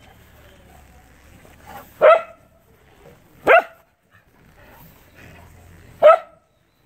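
A dog barking three times, single short barks spaced a second and a half to two and a half seconds apart.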